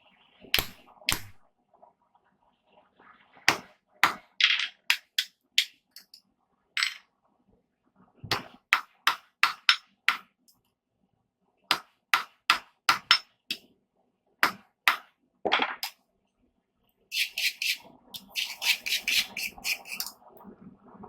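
Hammer striking steel on an anvil: irregular single blows and short runs of blows, then a quick run of lighter, faster strikes near the end.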